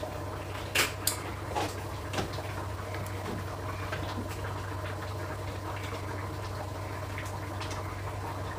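Chicken curry simmering in a pan on the stove, faint bubbling over a steady low hum, with a few light clicks in the first two seconds.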